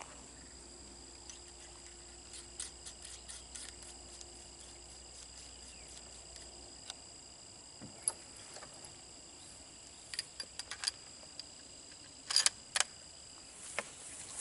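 Faint scattered clicks and rattles of a rifle being handled, with a quick run of clicks and then two sharper clicks near the end; no shot is fired. A steady high thin whine runs underneath.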